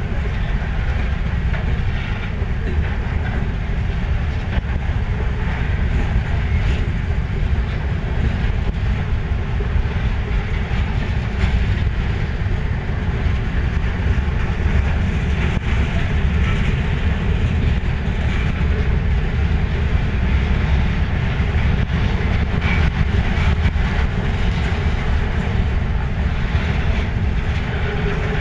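Freight train's covered hoppers and boxcars rolling steadily past close by: a continuous rumble of steel wheels on the rails with scattered clicks over the joints.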